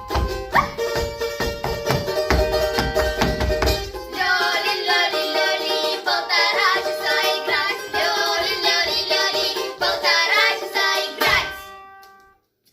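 A sung duet over a backing track: about four seconds of instrumental with a steady beat, then voices singing with vibrato over the music, which fades out near the end.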